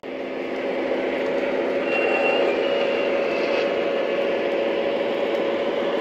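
O gauge three-rail model train running: Lionel diesel locomotives' electronic engine sound over the rumble of wheels on the track, steady throughout, with a brief high tone about two seconds in.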